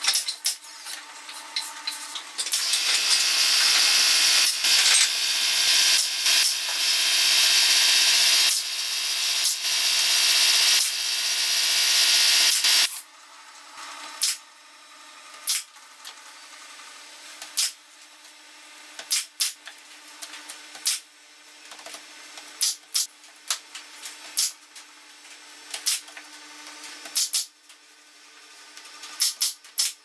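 A loud, steady hissing rasp for about ten seconds that cuts off suddenly, then a pneumatic brad nailer firing single sharp shots every second or two into thin wooden roof slats.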